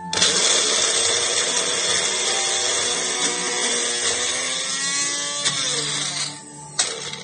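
Small personal bullet-style blender running, pureeing chunks of pumpkin. The motor starts suddenly, runs loudly for about six seconds, stops, and is pulsed again briefly near the end.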